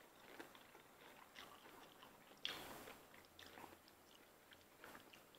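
Faint chewing and mouth sounds of people eating lobster with noodles, with scattered soft clicks and a slightly louder one about two and a half seconds in.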